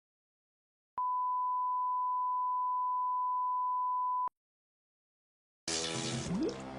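A steady, pure test tone: one unwavering beep that starts abruptly about a second in, holds for about three seconds and cuts off. Music begins near the end.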